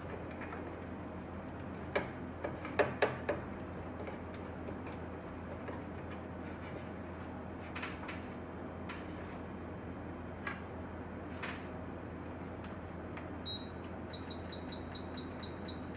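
Small repair tools clicking and tapping against an iPhone logic board, with a cluster of sharp clicks about two to three seconds in and scattered single ticks after, over a steady low hum. Near the end, a rapid series of short high beeps, about five a second.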